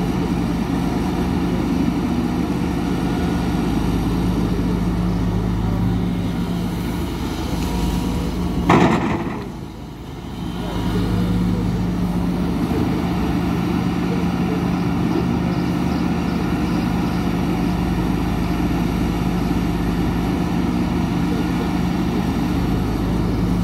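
Hidromek HMK 230LC crawler excavator's diesel engine running steadily with a low hum while it digs. A single sharp bang comes a little under nine seconds in, after which the engine sound dips for about two seconds and then returns to its steady level.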